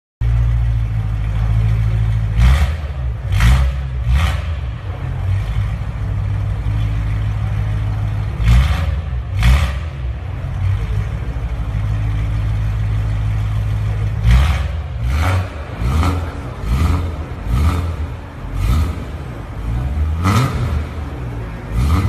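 BMW M3 with an Armytrix valvetronic aftermarket exhaust idling with a steady low drone, blipped in short sharp revs. There are three quick blips a few seconds in, two more near the middle, and a run of about seven in the last third.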